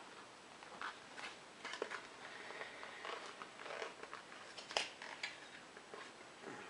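Faint scattered clicks, taps and rustles of hands working at an action camera still fixed in its packaging, trying to detach it, with one sharper click about five seconds in.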